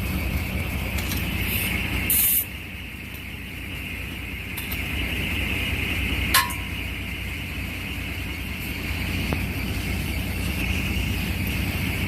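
Steady hum of an idling diesel engine at a truck tire repair, with a short, loud hiss about two seconds in and a sharp metallic click with a brief ring about six seconds in.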